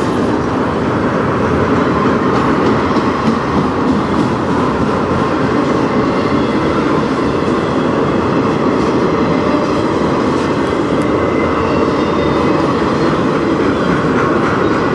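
Autorack cars of a CN freight train rolling past: a loud, steady rumble of steel wheels on rail, with scattered light clicks.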